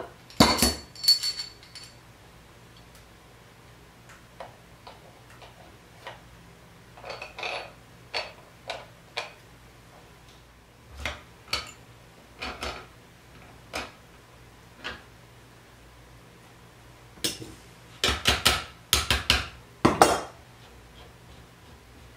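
Metal parts of a crimp screw and crimping block clinking and knocking as they are handled. There is a quick run of sharp clanks with a brief metallic ring just after the start, scattered light clicks and taps through the middle, and another run of clanks near the end.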